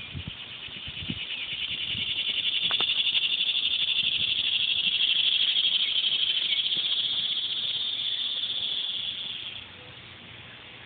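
A cicada's high, rapidly pulsing buzz swells in loudness over a few seconds, holds, then cuts off abruptly near the end.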